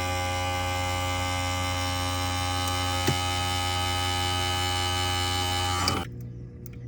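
A steady, loud hum with many overtones, unchanging, that cuts off abruptly about six seconds in.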